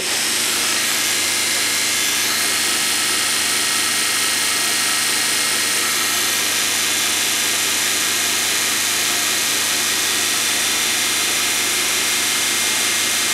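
Large house-fan blade spun by a home-built brushed 'rotary transformer' motor, running at a constant speed: a steady rush of air with a faint even hum.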